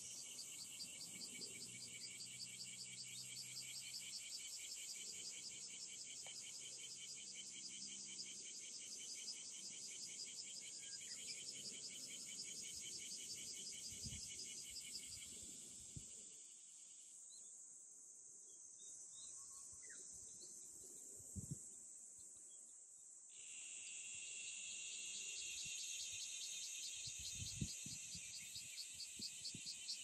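Cicadas singing: a fast, evenly pulsing song that stops about halfway through and starts again some eight seconds later, over a steady high insect hiss.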